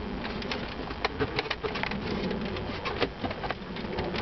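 Plastic centre-console trim panel of a 2004 Mitsubishi Montero clicking and creaking as it is pried up and worked loose from its clips, a quick run of small, sharp clicks and ticks.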